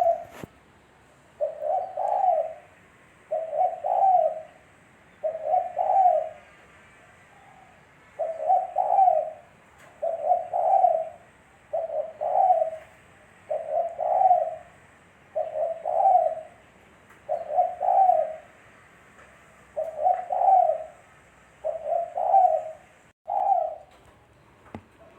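Spotted dove (tekukur) cooing over and over, a short low phrase of two or three notes about every two seconds, with faint chirping behind.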